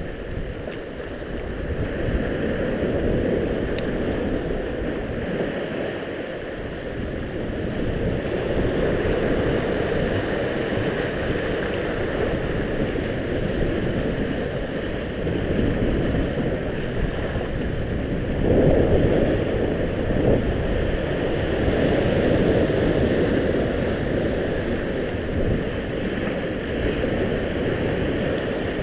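Sea surf washing and breaking against shoreline rocks, swelling and easing with each surge, loudest a little past halfway, with wind buffeting the microphone.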